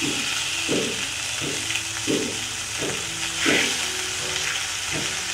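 Oil sizzling in a nonstick pan as a tempering of ginger-chilli paste and curry leaves is sautéed over a low flame. A silicone spatula stirs and scrapes the pan in short strokes, about seven of them, roughly every two-thirds of a second.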